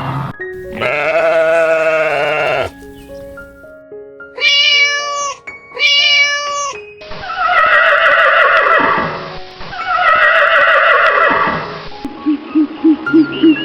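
Farm animal calls over light background music: a long wavering call near the start, two short calls around the middle, then two longer, rougher calls that fall in pitch.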